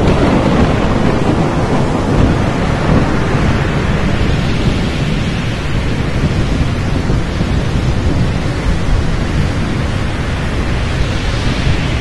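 Stock intro sound effect of steady heavy rain with thunder rumbling, ending with a sudden hit.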